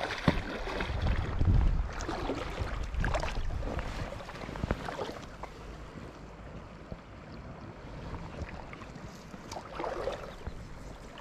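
River water splashing and sloshing as a hooked trout thrashes at the surface and a landing net is held in the shallows, with a sharp splash just after the start. Wind buffets the microphone.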